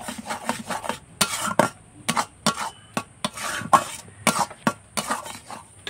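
A spatula scraping and knocking in a kadai in quick irregular strokes, about two or three a second, as semolina thickens in milk and is stirred to keep it from going lumpy.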